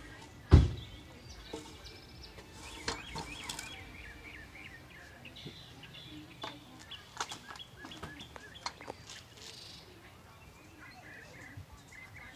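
Handling a wooden 4x4 timber: one loud thump about half a second in, then lighter knocks and taps as the board is shifted into place on a miter saw. Birds chirp in the background.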